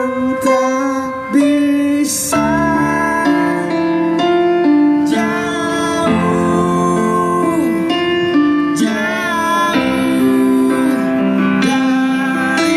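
Live music: a voice singing a melody over keyboard accompaniment.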